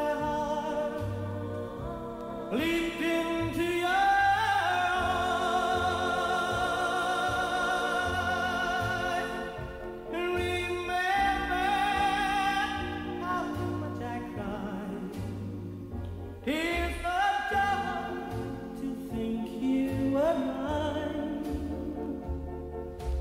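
Background music: a slow song with long, held sung notes over a steadily pulsing bass.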